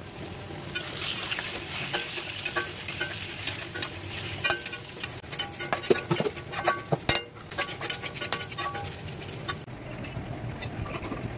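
Pieces of marinated meat sizzling in hot oil in a metal wok, stirred with a wooden spatula that knocks and scrapes against the pan in frequent clicks. The sizzle thins near the end.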